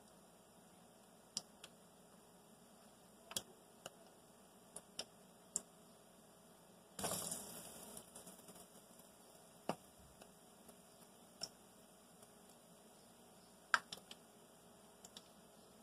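Batter-coated cauliflower florets deep-frying in hot oil: a faint steady sizzle with scattered sharp sputtering pops. About seven seconds in, a fresh battered floret goes into the oil and gives a burst of sizzling that dies down over about a second.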